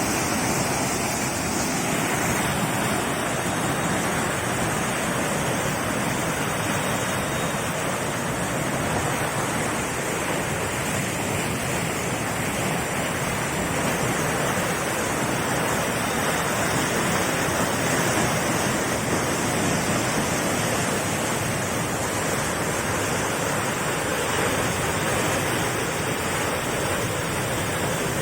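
A steady, loud rush of water, even and unbroken throughout, with no distinct strokes or tones.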